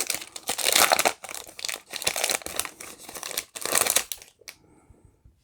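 The foil wrapper of a 2020 Panini Select soccer card pack being torn open and crumpled in the hands: a dense run of crackling that stops about four seconds in, followed by one sharp click.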